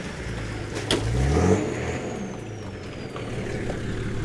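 Nissan Patrol 4WD's engine revving up briefly about a second in as it tries to push through a deep mud rut, with a sharp knock at the same moment, then running steadily. A faint high whistle falls slowly in pitch after the rev.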